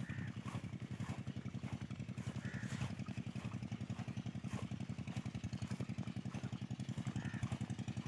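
A small engine running steadily, heard as a fast, even low putter with no change in speed. A few faint bird chirps sound over it.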